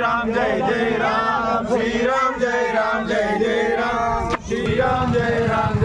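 A group of men chanting a devotional song together as they walk in procession, with a brief dropout a little over four seconds in.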